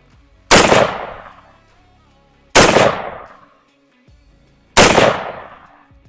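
Three rifle shots from an AR-15 chambered in .223 Wylde with an 18-inch barrel, about two seconds apart, each a sharp crack with a tail that dies away over about a second. Recorded through a wireless clip-on microphone.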